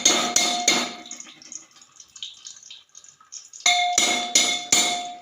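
Metal spoon clinking against a steel cooking utensil, each strike ringing briefly: a quick run of clinks in the first second, then four more near the end.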